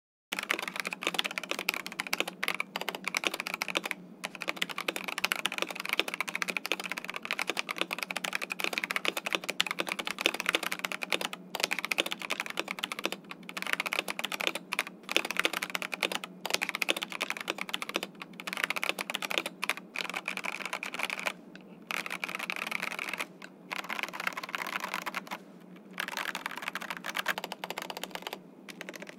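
Typing on an Epomaker TH98 mechanical keyboard fitted with stock, unlubed Cherry MX Red linear switches: a steady stream of keystroke clacks, broken by a few short pauses in the second half.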